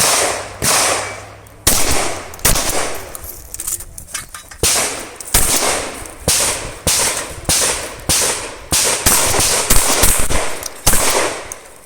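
Remington 870 pump-action 12-gauge shotgun fired in a rapid string of more than a dozen shots, roughly one every half second to second, each shot ringing out with a trailing echo.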